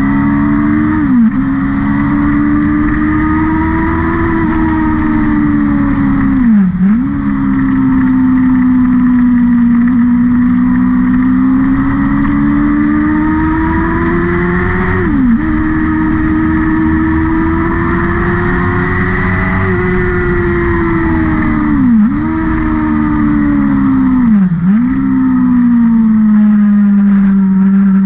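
A vehicle engine running hard on a race circuit. The revs climb and fall slowly, with about five sudden short dips in revs as gears change.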